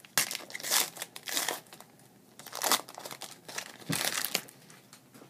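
Foil trading-card pack being torn open and its wrapper crinkled, in about four bursts of crackling that die away near the end.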